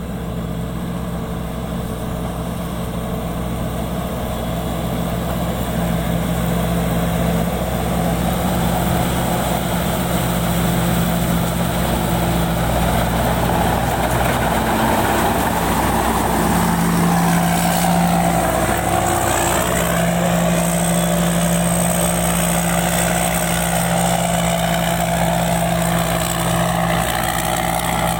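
Rice combine harvester's engine running steadily, growing gradually louder as the machine comes closer.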